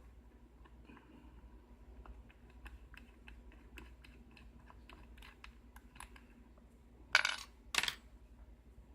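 Small metal parts of a pin-tumbler lock being handled while the lock is taken apart: a run of light, irregular clicks, then two short metallic rattles about seven and eight seconds in as small pieces drop onto a metal tray.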